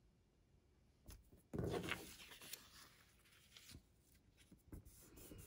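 Faint rubbing and rustling of paper as a newspaper cut-out is pressed and smoothed by hand onto a paper letter and a glue stick is rubbed across it, loudest about a second and a half in.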